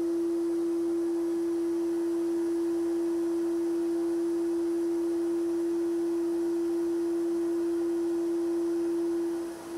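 Sandblasting cabinet blasting a cast-iron grinder part: a steady single-pitched whistle over a faint hiss, briefly dropping away just before the end.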